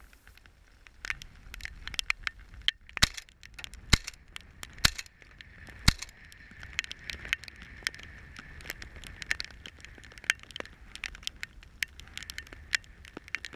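Irregular crackling and clicking from an action camera being jostled in its housing as the shotgun is swung, with a few sharper knocks about three to six seconds in.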